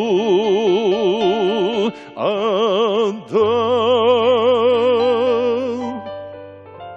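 A man singing a Christian song in Russian with wide vibrato over an instrumental backing, holding long notes: a long note, a brief break, a short note, then a final note held about three seconds that fades out near the end while the backing continues.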